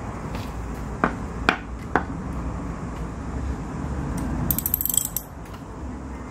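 Metal tool clicks as a ratchet handle and long 8 mm socket unscrew the injector of a small model diesel engine: three separate sharp clicks in the first two seconds, then a quick run of ratchet clicks about four and a half seconds in.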